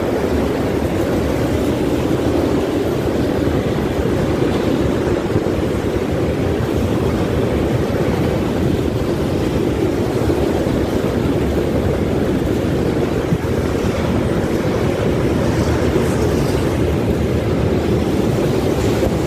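Freight train of tank wagons rolling past, a steady unbroken rumble of steel wheels on the rails.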